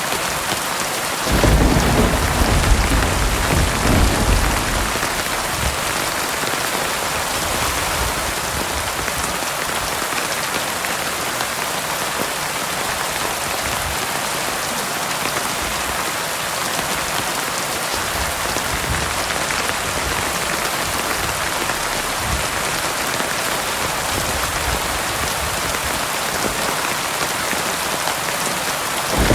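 Heavy rain falling steadily in an even hiss. A low rumble of thunder rolls in about a second and a half in and fades after a few seconds.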